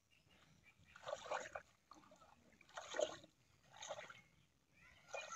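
Faint splashing and sloshing of pond water from a person wading, in three or four short bursts about a second apart.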